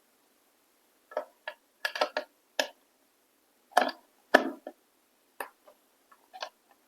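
Irregular clicks and knocks of a jack cable being handled and plugged into an audio sound card, starting about a second in.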